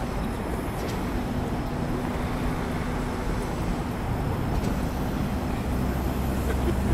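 Steady city traffic rumble with a constant low engine hum running under it.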